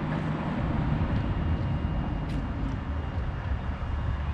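Steady low outdoor rumble, with a couple of light clicks a little past the middle as a metal muffin tin is set on the pellet grill and its lid is shut.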